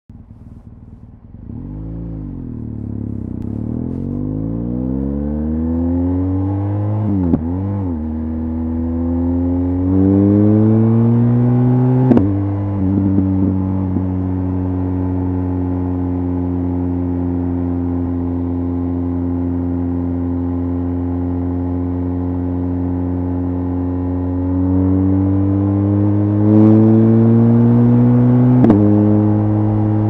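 BMW R1200GS Adventure's flat-twin boxer engine breathing through an Akrapovic HP exhaust while riding: it fades in, pulls up through the gears with sudden drops in pitch at upshifts about seven and twelve seconds in, runs at a steady cruise, then rises again and shifts up near the end.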